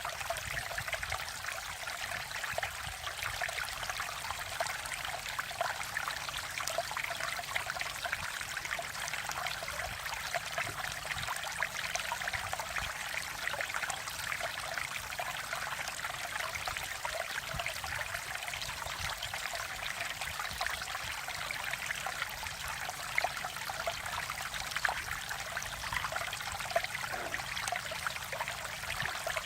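Mountain stream water flowing and splashing over rocks, a steady babble with small trickling splashes.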